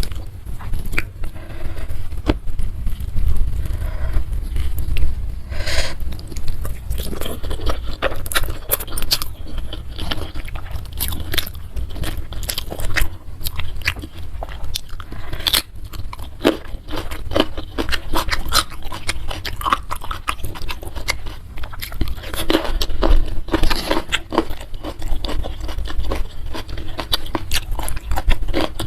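Close-miked chewing and biting, with many short, irregular crunches and wet mouth clicks.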